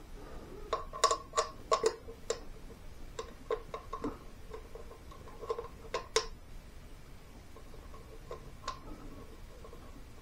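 Small screws clicking and clinking against an aluminum engine cover as they are placed and turned in by hand: irregular light metallic ticks, each with a brief ring, busiest in the first six seconds and sparser after.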